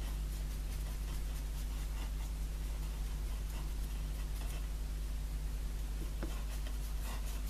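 Faint scratchy rubbing as wax is worked onto a decorative frame, with a few light ticks, over a steady low electrical hum.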